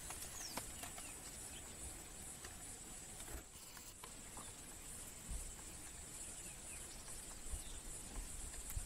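Steady high-pitched insect chorus of the African bush, with faint short bird chirps over it and a few low rumbles from wind on the microphone.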